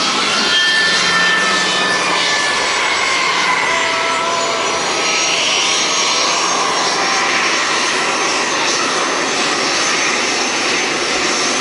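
Piston aircraft engines running steadily, a dense, even drone with faint thin tones drifting slightly in pitch.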